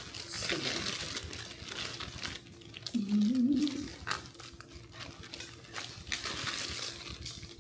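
Clear plastic flower sleeve crinkling and rustling in short crackles as a bouquet is unwrapped and its stems handled. A short hummed sound from a voice comes about three seconds in.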